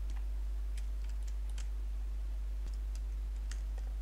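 Scattered clicks from a computer keyboard and mouse, irregular and a few each second, over a steady low hum.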